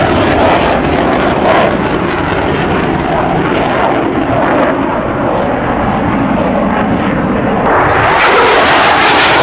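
Twin-engine F-15 Eagle fighter jet flying past with both afterburners lit, making a loud, steady rushing jet noise that swells near the end.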